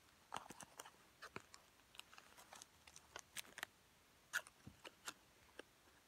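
Small paperboard Tomica toy-car box being handled, its end flap worked open: an irregular string of faint quick clicks and crinkles of card, loudest about four seconds in.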